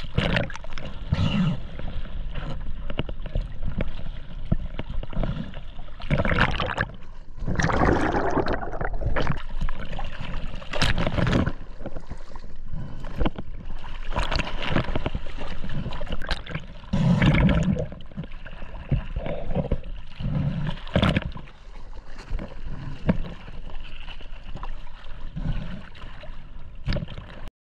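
Seawater splashing and gurgling around a camera held at the surface, with irregular louder splashes and sloshes as the camera dips through the waves. It cuts off suddenly near the end.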